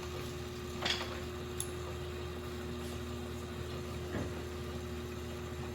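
A steady machine hum with two soft knocks, one about a second in and another just after four seconds.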